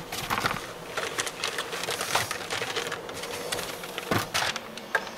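Irregular light clicks and taps of plastic and metal as a removed car stereo head unit is handled, with a louder knock a little past four seconds in.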